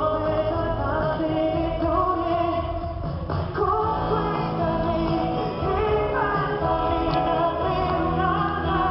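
Live rock band playing with a woman singing the melody over it.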